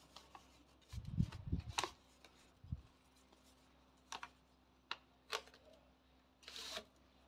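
Rolled craft-paper tubes being handled: a paper sleeve sliding and rustling over a paper roll, with a few low bumps about a second in and again shortly after, several short crisp crinkles and clicks, and a longer rustle near the end.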